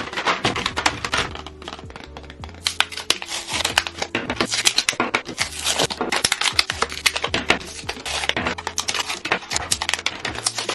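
Plastic blister packs of brush pens crinkling and being torn open, with clicks and taps as the freed pens are set down on a table, over soft background music.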